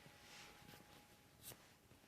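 Near silence: faint room tone with a small click about one and a half seconds in.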